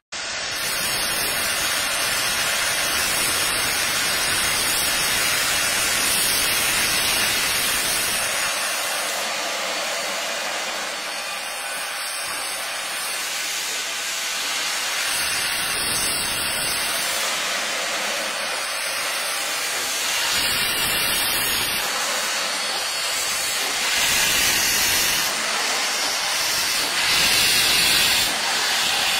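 Cumbres & Toltec narrow-gauge K-36 steam locomotive blowing steam from its open cylinder drain cocks as it moves slowly: a loud, steady hiss that grows louder near the end.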